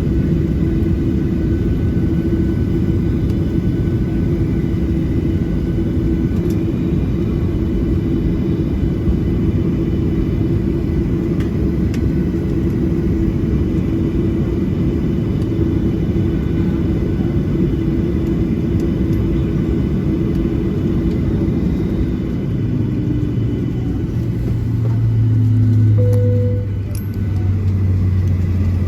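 Cabin noise inside a Boeing 737-700 taxiing after landing: a steady rumble with a constant hum from the engines at idle. Near the end the hum fades and a lower drone takes over, swelling briefly.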